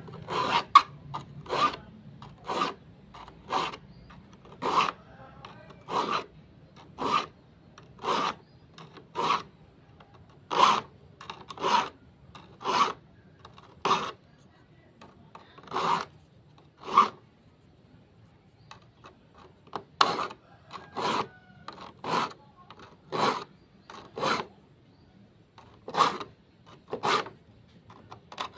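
A file being drawn across the teeth of a hand saw to sharpen them, a short rasping stroke about once a second with a brief pause a little past halfway.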